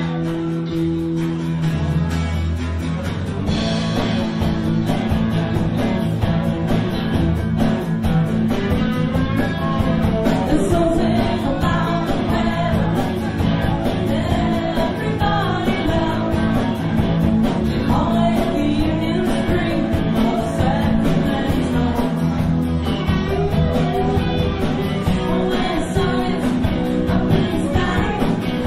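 Live band playing a seventies pop song: a woman singing lead over guitars and drums, heard through the club's PA.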